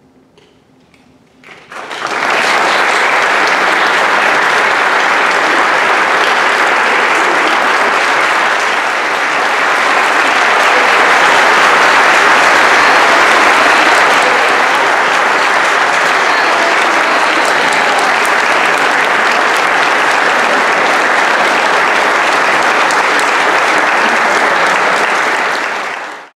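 Audience applauding: dense, steady clapping that starts about two seconds in after a brief lull and cuts off abruptly near the end.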